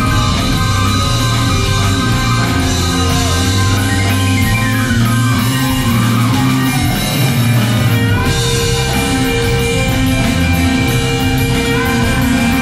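Live band playing an instrumental passage, with keyboard played up front over electric bass and drums. Near the middle, one line slides steadily down in pitch over a few seconds.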